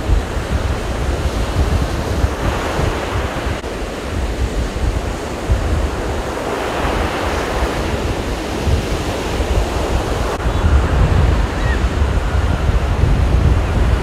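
Rough sea surf breaking on a sandy beach, swelling up twice, with gusty wind buffeting the microphone in a low rumble.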